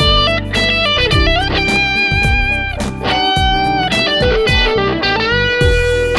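PRS Studio electric guitar played through Kingsley Juggler V3 and Peasant pedals for an overdriven tone: a lead line of single notes with bends, ending on a long held note, over a steady low beat.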